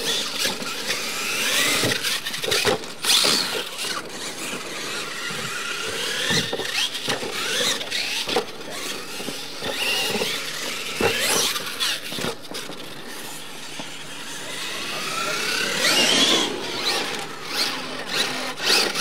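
R/C monster truck motors whining, the pitch rising and falling over and over as the trucks speed up and slow down, with repeated sharp knocks from the trucks hitting the dirt and ramps.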